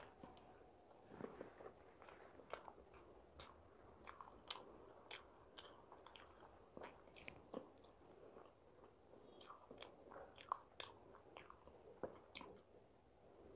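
Faint close-up chewing and eating mouth sounds: short wet clicks and smacks come irregularly, about one or two a second, as soft idli is eaten.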